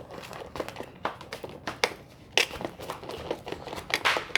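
Slime being stirred in a small dish as detergent-water activator is mixed in: irregular sticky clicks and crackling taps, a few louder ones about halfway and near the end.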